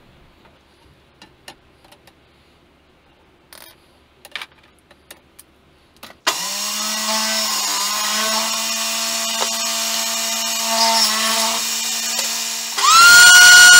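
Small taps and clicks of a tape measure and pencil on a board, then a table saw motor starts and runs steadily while cutting oak. Near the end a louder power-tool motor switches on, its whine rising quickly to a high steady pitch.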